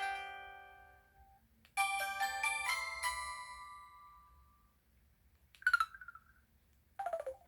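Samsung Anycall SPH-V9500 slim folder phone playing a short chime-like ringtone or effect melody through its small speaker: a phrase of bright bell-like notes that rings out and fades. Near the end come two brief clicks with a quick falling tone.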